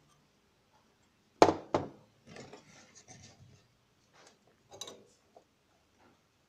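Two sharp knocks about a second and a half in, then rubbing and scraping and a few light clatters: a small circuit board and tools being handled and set down on a workbench.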